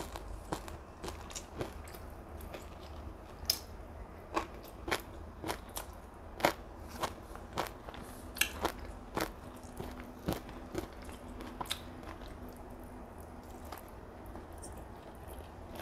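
Close-miked chewing of fried flat rice noodles: irregular sharp wet mouth clicks and smacks, one every half second or so.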